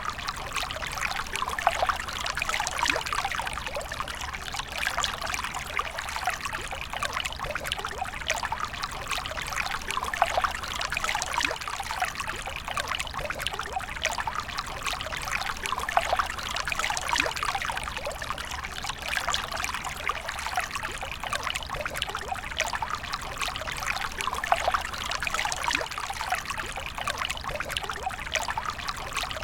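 A laminar water stream pouring steadily into water, a continuous splashing trickle with many small fine splashes, and a steady low rumble underneath.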